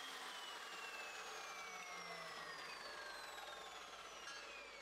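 Evolution mitering chop saw's motor and abrasive-free metal-cutting blade coasting down after being switched off: a faint whine of several tones sliding steadily lower in pitch.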